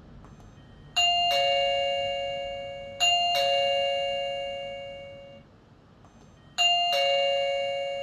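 Electronic ding-dong of the GEEKEE wireless video doorbell's chime after its button is pressed: a higher note then a lower one, sounding three times, each pair fading out.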